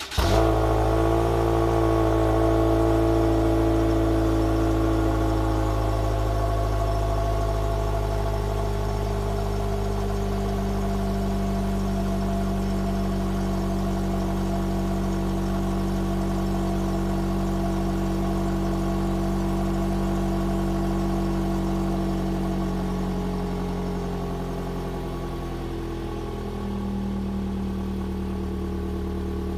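Toyota Voxy 80 G's 2.0-litre four-cylinder catching on a cold start and idling high and steady through its factory sport exhaust with a sound-tuned sub-muffler, a high-pitched note from the tailpipes. The idle drops and settles in the last several seconds.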